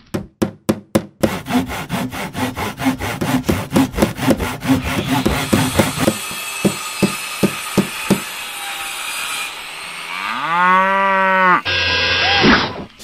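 Cartoon construction sound effects. A quick run of sharp knocks like hammer blows gives way to a rasping stretch of sawing and grinding, then a few more separate knocks. Near the end comes a long pitched groan that rises and holds for about a second and a half, followed by a short bright whoosh.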